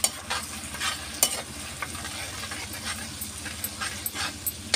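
Ginger-garlic paste and ground chillies sizzling in hot mustard oil in a kadhai, while a metal spoon stirs and scrapes against the pan with frequent sharp clicks.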